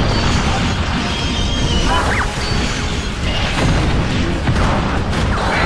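Battle-scene soundtrack from a Japanese superhero TV show: dramatic music over crashing impacts and heavy rumbling, with a short rising sound about two seconds in.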